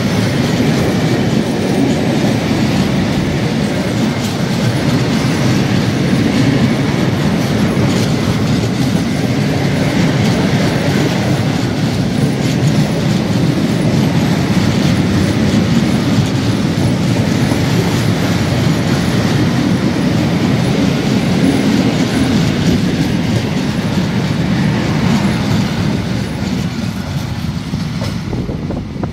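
Freight train's open wagons rolling past at close range: steady rumble of steel wheels with clickety-clack over the rail joints, fading over the last few seconds as the end of the train goes by.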